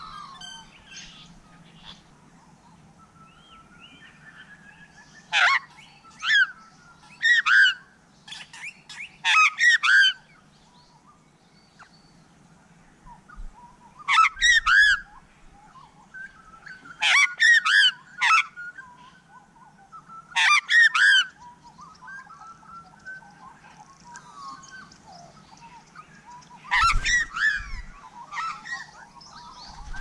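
Australian magpie carolling: loud, warbling, pitched calls in short phrases a few seconds apart, with fainter birdsong in between.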